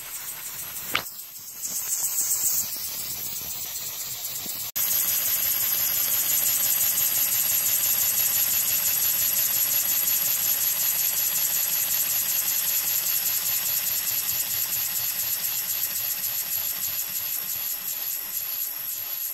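Small two-cylinder model air engine with clear cylinders running on compressed air: a steady hiss of escaping air with a fast, even pulse. A sharp click about a second in, and the sound gets louder about five seconds in.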